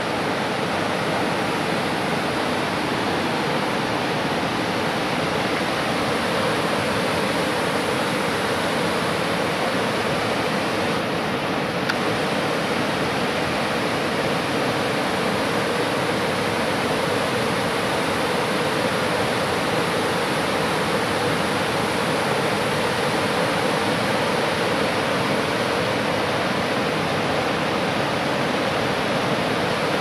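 Rushing whitewater of a mountain river pouring over rapids and falls through a rock gorge: a steady, unbroken rush of water.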